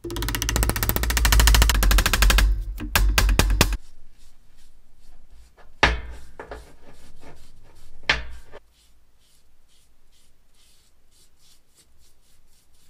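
A mallet rapidly tapping a steel hammer head down onto its wooden handle: a fast, even run of sharp taps for the first few seconds, then a few separate knocks. Two heavier knocks follow, and faint light clicking near the end.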